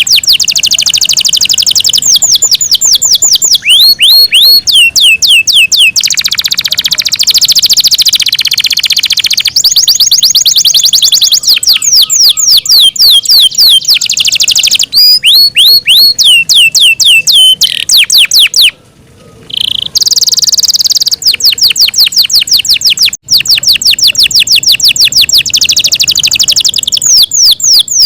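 Yorkshire canary singing a long, loud song made of fast rolls of repeated sweeping notes and rapid trills, with a short pause a little over two-thirds of the way through.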